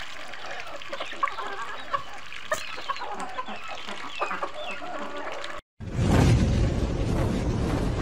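Hens clucking as a mixed flock of chickens and ducks feeds, with many small pecking ticks at the feed among the calls. Just over five seconds in the flock sound cuts out, and a louder low rumbling sound effect begins.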